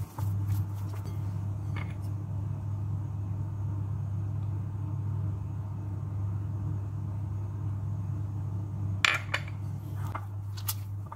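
A steady low hum runs throughout, with light handling sounds as dough is worked by hand in a glass bowl. About nine seconds in, a small ceramic dish is set down on the counter with a sharp clink, followed by a few lighter knocks.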